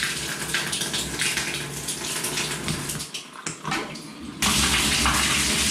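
Water pouring from an open copper pipe stub and splashing on a tiled shower floor. The flow is shut off about three seconds in, dwindling to a trickle, then turned back on with a sudden gush a little over a second later as the Grohtherm SmartControl valve is worked.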